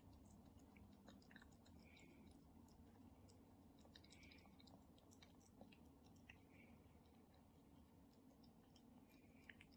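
Faint, irregular wet clicking of a cat chewing wet meat food from a bowl.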